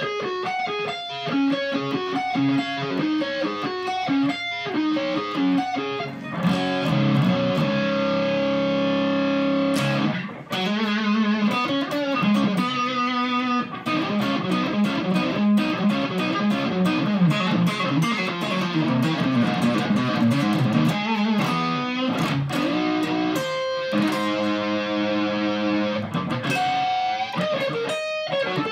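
Epiphone Explorer electric guitar on its neck pickup, played through a Cascade Pedals Black Cat Overdrive into a Fender Supersonic tube amp on its clean channel. It plays overdriven riffs and single-note lines, with some held notes wavering with vibrato.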